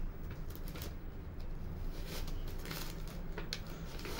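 Self-adhesive contact paper rustling and crackling as it is handled and pressed onto a cardboard box, in short irregular crinkles over a low steady hum.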